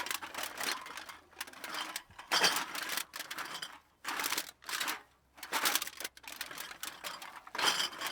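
Empty bottles clinking and rattling against each other, heard from a distance, in irregular bursts of clatter with short gaps between, a few of them ending in a brief ringing note.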